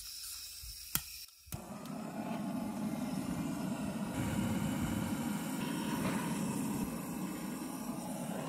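A handheld charcoal lighter aimed at charcoal briquettes to light them: a click about a second in, then a steady rushing noise of flame or hot air that runs on for several seconds.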